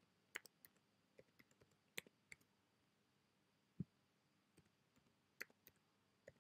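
Faint, irregular clicks of computer keyboard keys as a short password is typed, letter by letter, with one duller, louder knock a little past halfway.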